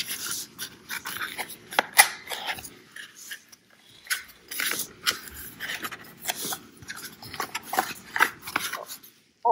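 Cardboard gift box and its packaging handled up close: a run of rustles, scrapes and light taps as the box is opened and the inner tray and contents are lifted out.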